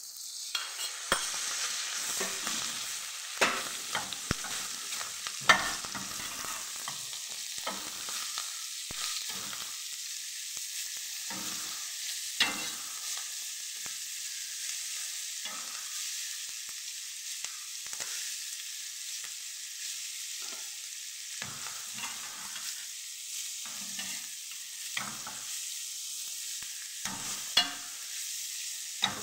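Boiled lamb lung, heart and spleen sizzling as they fry in a stainless steel pan. A slotted spatula stirs them, scraping and knocking against the pan, with a few louder knocks in the first several seconds.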